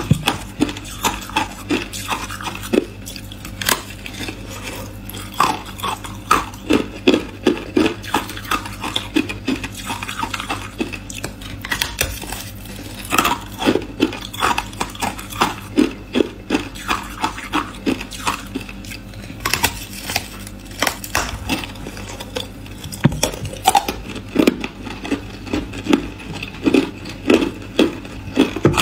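Hard ice being bitten and chewed close to the microphone: a continuous run of sharp crunches and crackles, several a second.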